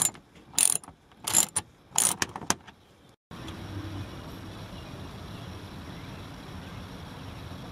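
Hand ratchet and socket clicking in short bursts, about six sharp metallic strokes over two and a half seconds, as the splash-guard bolts are run in. About three seconds in it cuts to a steady faint background noise.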